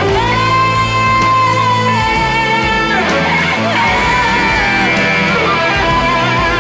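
Live rock band playing: electric guitar over bass guitar and drums, with a woman singing long held notes.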